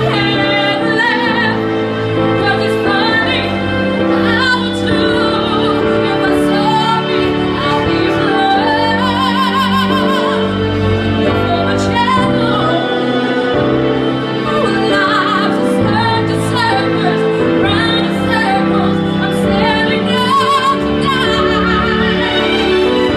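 A woman singing a ballad live into a microphone over recorded backing music, with a wide vibrato on her held notes.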